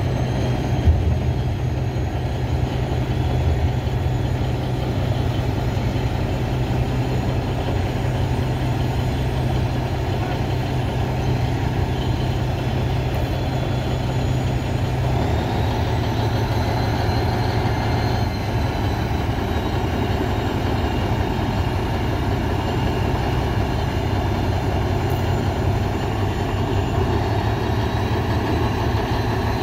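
Heavy vehicle engine running steadily with a continuous low drone, its low tone changing about halfway through.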